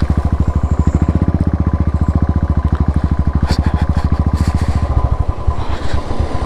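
Motorcycle engine running under the rider on a slow, rough road, its exhaust a rapid steady beat. About five seconds in, the beat slows and turns uneven.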